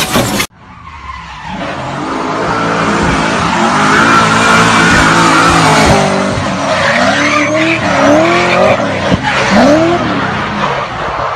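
Car doing a burnout: engine held at high revs while the tyres spin and squeal, with wavering, rising-and-falling squeals in the second half.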